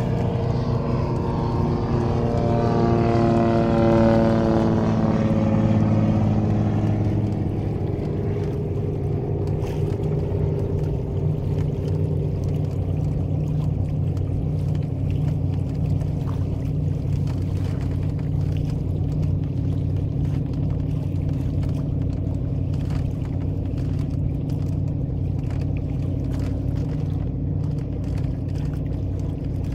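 Single-engine floatplane passing low overhead. Its propeller engine drones with a pitch that falls over the first several seconds as it goes by, then gives way to a steady low engine drone under wind and water noise.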